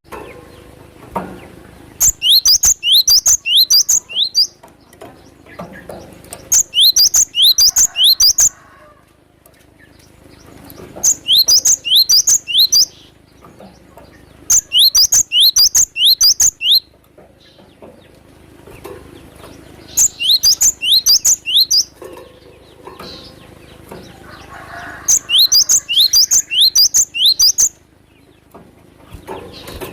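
Cinereous tit (glatik batu) singing: six loud bursts of rapid, sharp, high repeated notes, each burst about two seconds long with short pauses between. Fainter chirping goes on underneath.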